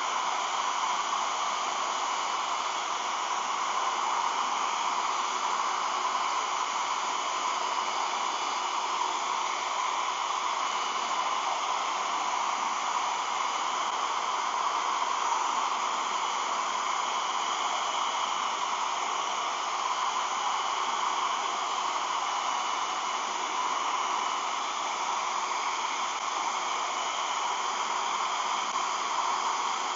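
Hair dryer running steadily, blowing hot air, with a faint high whine over the rush of air.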